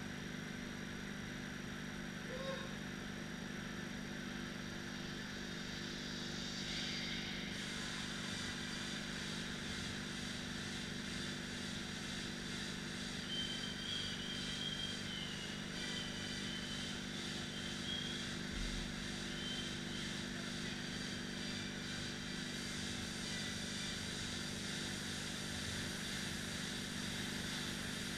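Air-resistance rowing machines' fan flywheels whirring steadily as two rowers pull continuous strokes.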